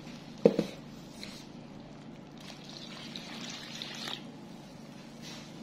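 Water pouring steadily from a plastic jug into a metal mixing bowl of flour, with a brief knock about half a second in.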